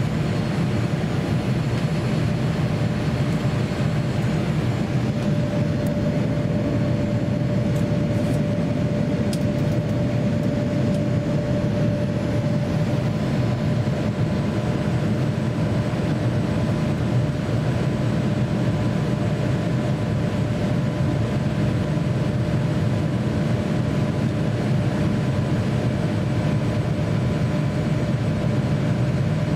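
Steady cabin noise inside a Boeing 787-9 airliner in flight: a constant low rumble of airflow and engines, with a faint steady hum over it.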